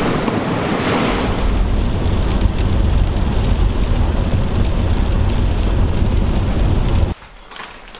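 Brief wind and surf, then the steady low rumble of a car's road and engine noise heard from inside the cabin while driving, with rain on the windshield; it cuts off suddenly about seven seconds in.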